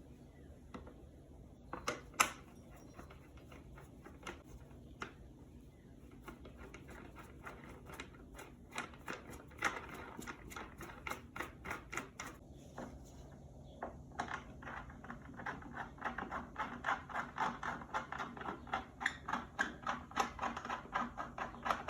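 Flat-pack cat tree being put together by hand: runs of small sharp clicks, several a second, as a screw or fitting is turned with a hand tool, with one sharper knock about two seconds in and faster, denser clicking in the second half.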